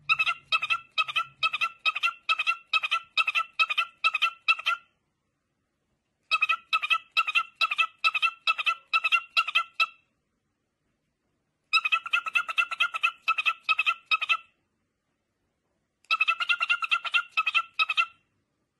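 Cockatiel giving quick, evenly spaced chirps of one steady pitch, about three a second, in four runs of a few seconds each with short pauses between.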